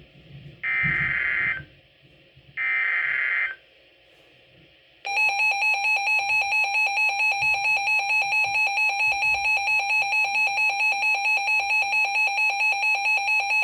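Emergency Alert System broadcast: two one-second bursts of warbling SAME digital header data, then, about five seconds in, a loud buzzy alert tone pulsing about four times a second.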